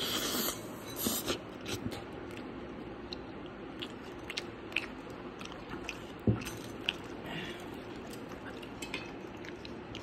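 A person biting and chewing toast loaded with baked beans and scrambled eggs, heard close up: crunchy bites in the first second or so, then wetter chewing with small clicks. A single dull knock about six seconds in.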